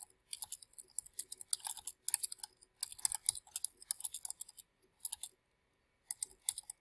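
Typing on a computer keyboard: quick runs of key clicks, with a short pause about five and a half seconds in.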